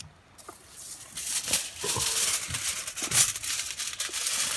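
Sheet of kitchen aluminium foil crinkling and rustling as it is handled and folded double. It starts about a second in, with a sharp crackle around three seconds in.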